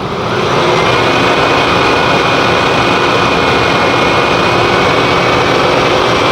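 Ford 4.6 L V8 in a 1998 Expedition running steadily, getting louder over the first second, with a faint steady whine above the engine note. The owner notes an exhaust leak can be heard in the engine sound.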